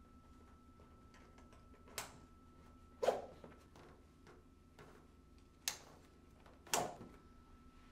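Four short sharp clicks and knocks, in two pairs a few seconds apart, the second the loudest: a red manual SUP hand pump being strapped onto a nylon kayak backpack, with the strap fastening and the pump knocking against the bag.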